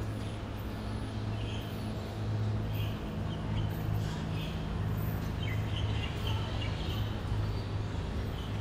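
Outdoor ambience: a steady low hum with birds chirping now and then.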